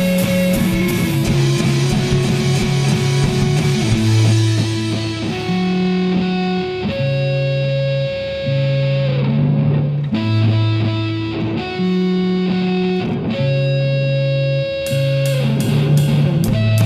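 Electric guitar music with distortion: held notes and chords changing about every second or two. Fast, regular high ticks join in near the start and again near the end.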